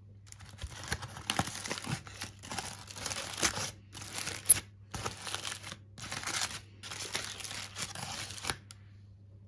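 Aluminium foil crinkling and rustling in irregular bursts as a foil parcel is peeled open by hand, stopping shortly before the end.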